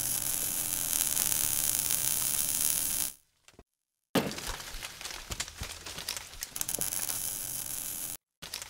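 Logo-animation sound effects: a dense crackling hiss that cuts off after about three seconds. After a short gap, a sudden hit sets off more crackling that slowly fades.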